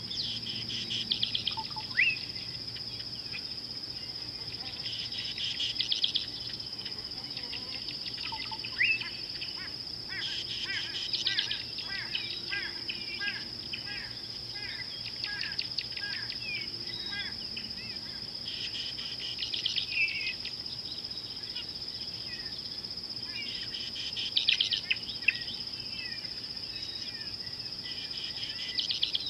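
Wild birds chirping and calling in repeated bursts of short, quick notes over a steady high-pitched insect drone.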